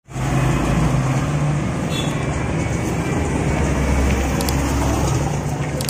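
Steady low rumble of a motor vehicle engine running, with road traffic noise.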